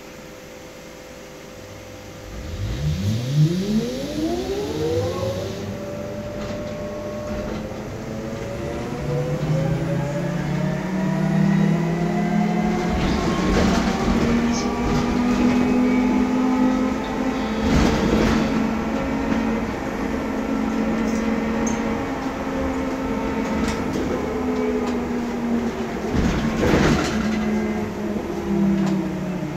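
Electric traction motor of a MAN Lion's Classic city bus converted from diesel to electric, heard from inside the cabin as the bus pulls away. The motor whine climbs steeply in pitch over the first few seconds, holds fairly steady while the bus cruises, and falls near the end as it slows. A few sharp knocks and rattles from the bus body come along the way.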